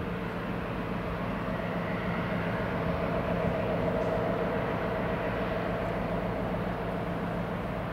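Diesel train running with a steady engine hum, growing a little louder a few seconds in.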